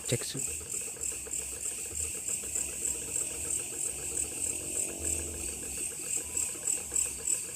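Crickets chirping in a steady, high-pitched, evenly pulsing trill a few times a second.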